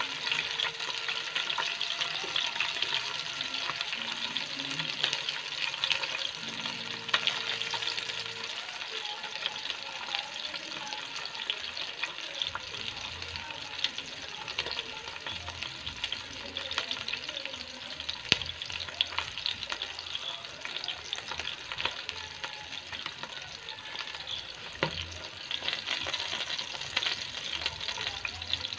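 Whole masala-coated stuffed chicken shallow-frying in hot coconut oil in a pan: a steady sizzle dense with small crackles and pops.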